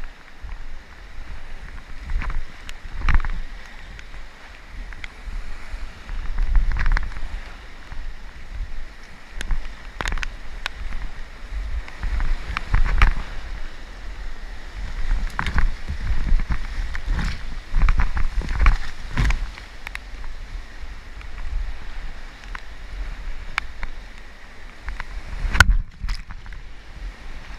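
Paddling an inflatable kayak on a river: irregular paddle splashes and knocks against a steady rush of water, with wind rumbling on the microphone.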